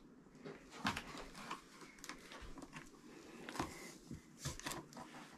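Faint, scattered taps and rustles of a cardboard box being handled.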